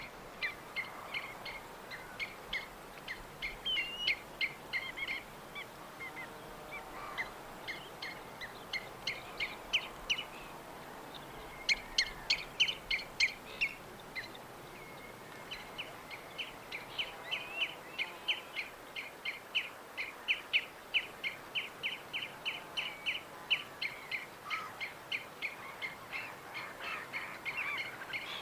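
Songbirds chirping: a steady stream of short, high chirps, several a second, over a faint constant background hiss, with a louder, brighter run of chirps about halfway through.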